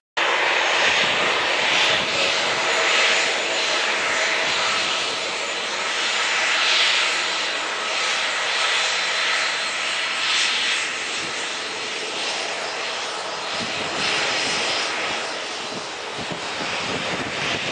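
Airbus A340-313's four CFM56-5C turbofan engines at take-off thrust during the take-off roll: a loud, steady jet roar that swells and ebbs, easing slightly near the end.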